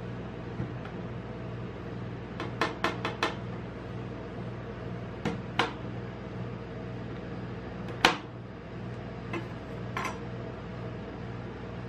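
Metal spatula blade chopping through a chocolate bar and knocking against a steel cold plate. Sharp clicks come in a quick run of four, then two, then one loudest knock, then two lighter ones, over a steady low hum.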